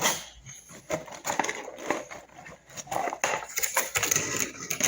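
Plastic toy packaging and parts being handled: irregular crinkling and rustling with many small clicks and knocks.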